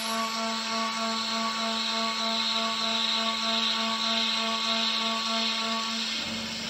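CNC router spindle running with a steady whine and a strong even hiss while a thread mill cuts a thread into the end of an aluminium plate. About six seconds in, the higher tones stop and a lower rumble comes in.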